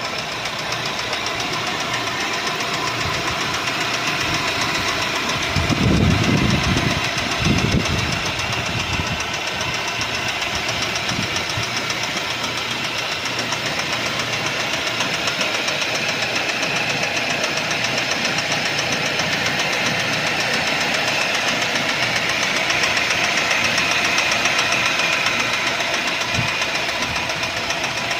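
Mercedes-Benz C180's 1.8-litre M271 four-cylinder petrol engine running with a steady, rapid knock, the sign of a damaged crankshaft (crankshaft bearing knock). Two brief louder low rumbles come about six and seven and a half seconds in.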